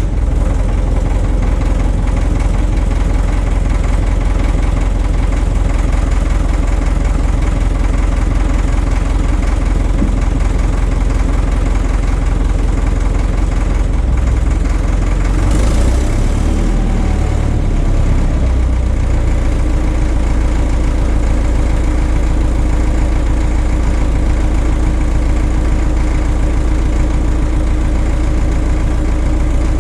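Caterpillar D4 crawler's diesel engine running steadily, turning the drive sprocket so the sprocket nut can be worked loose. About sixteen seconds in there is a brief hiss and a short wavering in the engine note, then steady running again.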